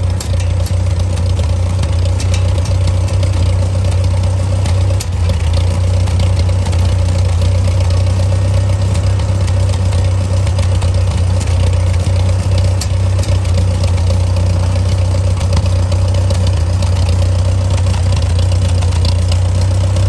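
Compact loader tractor's engine idling loudly and steadily, heard close up from on the machine.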